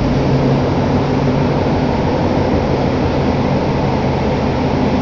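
Inside a Toei Oedo Line linear-motor subway car running through a tunnel: a loud, steady rumble of the train with a low hum under it.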